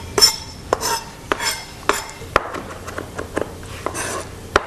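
Chef's knife finely chopping chilli and garlic on a plastic cutting board: uneven knocks of the blade against the board, about two a second.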